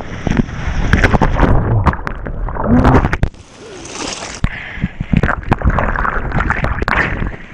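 Seawater splashing and sloshing against an action camera held at water level in breaking surf, with lots of sharp little splashes. About three seconds in the sound drops and goes muffled, then whitewater fizzes over the camera.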